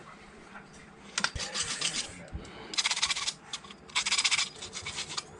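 Copper pipe end being scrubbed clean with an abrasive cloth, in three bursts of quick rasping strokes, to prepare it for a press fitting.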